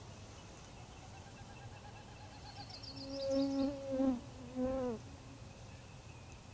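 A flying insect buzzing close past the microphone in three short passes about halfway through, its pitch dropping at the end as it moves off. A short, high, quick twittering sounds at the same time.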